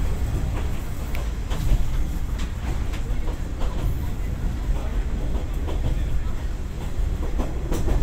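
Interior running noise of a Kominato Railway KiHa 200 diesel railcar under way: a steady low rumble from the engine and wheels on the rails. Irregular clicks and knocks of the wheels and car body run over it, the strongest near the end.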